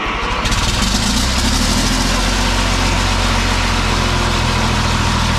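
Caterpillar diesel generator engine firing up about half a second in, then idling steadily. This is its first start after sitting for nine months, with its fuel lines just primed.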